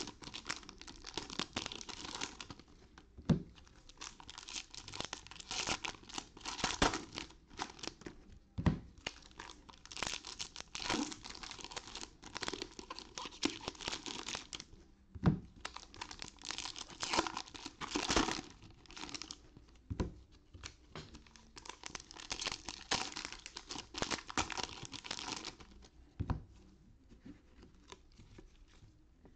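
Foil trading-card pack wrappers being torn open and crinkled by hand, in several spells of a few seconds each. Now and then there is a sharp knock.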